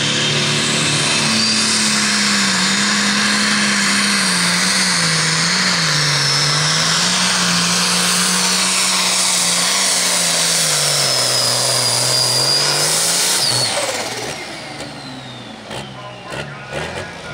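Case IH Magnum Limited Pro Stock pulling tractor's turbocharged diesel at full throttle under load, pulling the sled, with a high turbo whistle over the engine. The engine speed sags near the end of the pull. Then the throttle is cut and the engine and turbo wind down, followed by a few light knocks.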